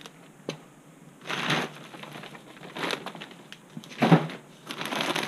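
Crinkling of a plastic bag of potting soil being handled, in several short bursts, the loudest with a thump about four seconds in.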